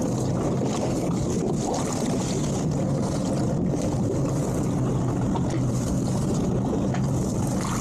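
Boat outboard engine running steadily at idle, with wind noise on the microphone.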